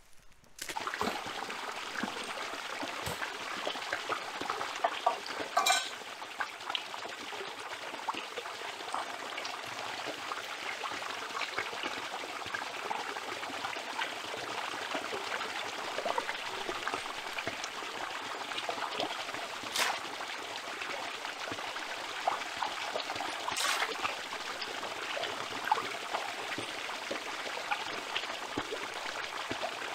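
Small forest stream trickling and splashing over a rock, steady throughout, while hands and then a container are dipped into the falling water to fill it. A few sharp clicks stand out above the water.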